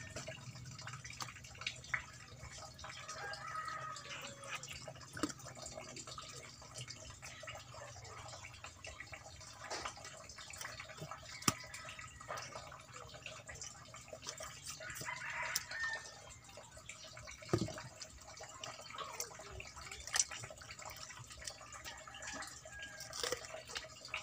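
Quiet, wet handling sounds of hands pulling the innards out of an opened pufferfish, with scattered small clicks and knocks against the metal table.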